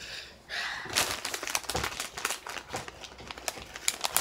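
Ruffles chip bag crinkling and crackling as a hand rummages in it for chips, a dense run of sharp crackles starting about a second in.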